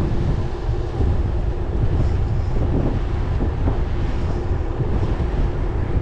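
Wind buffeting the microphone on a bicycle moving at about 25 km/h, a steady low rumble with a faint steady hum underneath.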